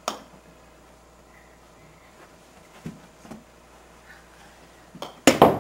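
A sharp click at the start, typical of a putter striking a golf ball, then two faint knocks about three seconds in and a louder cluster of knocks near the end.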